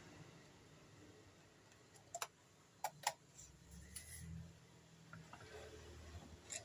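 A few scattered sharp clicks of hard kitchen utensils knocking together, the loudest pair close together near the middle, over a faint low hum.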